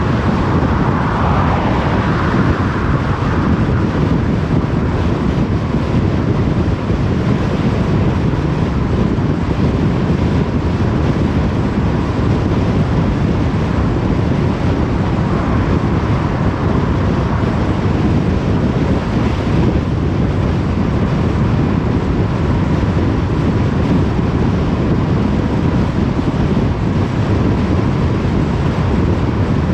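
Steady road noise of a car driving on a motorway: tyre roar and wind rushing, strongest in the low range. A louder swell of rushing noise fades away in the first couple of seconds.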